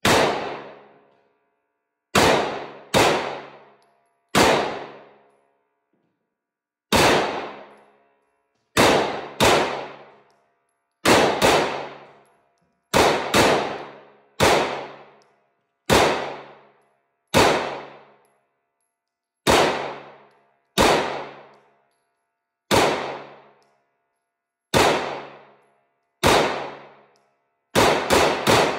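A Rex Zero 1 9mm pistol being fired shot after shot in slow fire, about twenty sharp reports spaced irregularly from under a second to a couple of seconds apart, each ringing out for about a second. There is a quick pair near the start and a quick cluster near the end.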